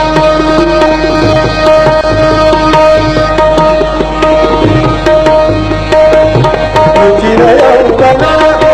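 Live Marathi natya sangeet accompaniment: a tabla plays steady strokes under a long held melodic note over a drone. Near the end a short moving melodic phrase comes in.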